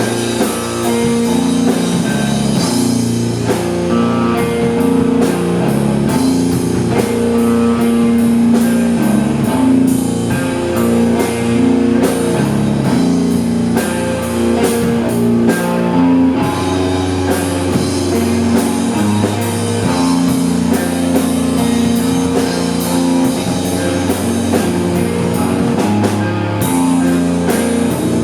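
Rock band playing live: electric guitar chords over a drum kit keeping a steady beat.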